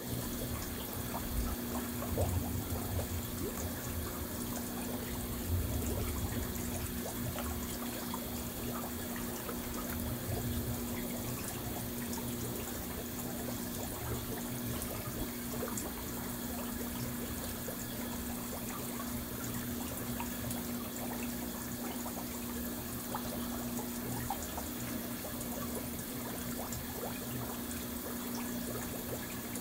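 Water churning and bubbling under strong circulation in a small round tub pond, with a steady low hum underneath.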